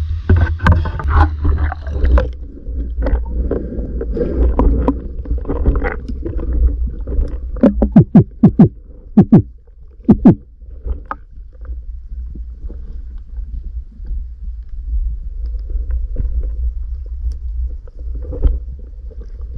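Splashing at the surface for about two seconds, then the sound turns muffled and low as the camera goes under the river water, leaving a steady low rumble. A cluster of sharp knocks comes near the middle.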